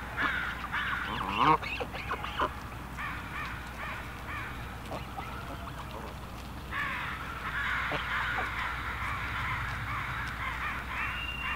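A flock of Canada geese calling: many short, overlapping calls in two spells, with one louder honk about a second and a half in.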